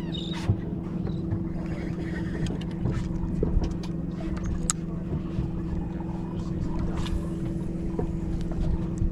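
Boat engine running steadily with an even hum, over water and hull noise, with a few small clicks.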